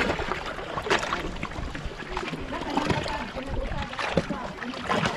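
Shallow seawater lapping and trickling over shoreline rocks, with a couple of sharp knocks.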